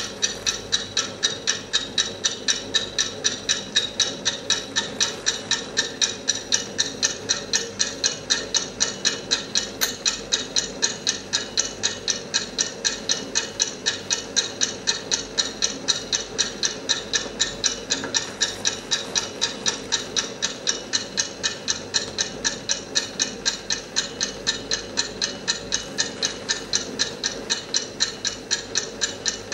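Mechanical wind-up alarm clock ticking steadily and quickly, several ticks a second.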